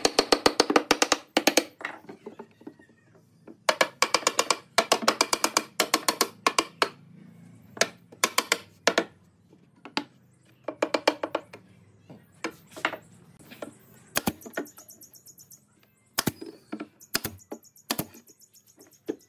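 Claw hammer driving nails into a pine shelf, in quick bursts of many rapid ringing taps with pauses between. Near the end come a few single sharp shots from a pneumatic nail gun, with a high air hiss.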